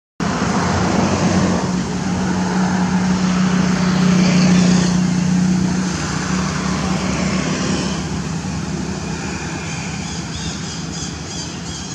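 A motor vehicle's engine hum and road noise, swelling over the first few seconds and then slowly fading as it passes.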